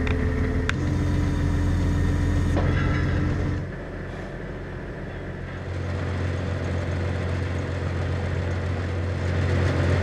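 Farm tractor's diesel engine running steadily, a low hum that drops quieter for about two seconds midway before coming back up.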